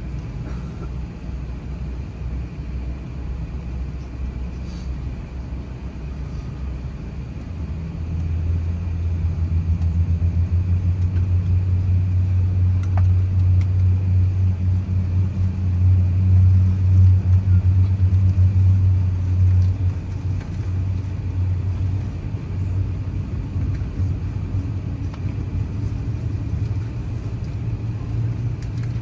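Low, steady rumble of an Airbus A380 on the ground, heard from inside the passenger cabin. A deeper hum swells about a quarter of the way in, holds for roughly twelve seconds, then settles back.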